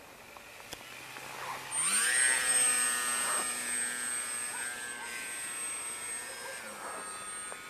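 RC foam airplane's electric motor and propeller whining in flight. About two seconds in the whine climbs sharply in pitch and gets louder, then holds steady, dropping slightly in pitch near the end.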